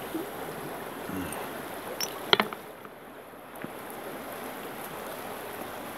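Shallow stream running over rocks, a steady rushing. A few sharp clicks come about two seconds in.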